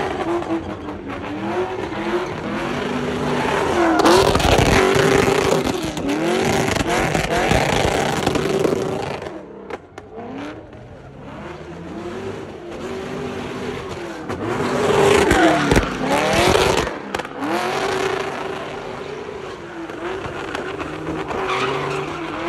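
A car doing donuts: its engine revving up and down over and over as the tyres spin and squeal. It is loudest twice, from about four to nine seconds in and again around fifteen seconds in, with a brief dip near ten seconds.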